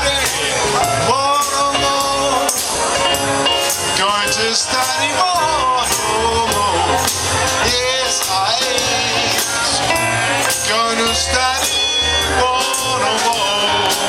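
Music with a singing voice and a steady percussive beat.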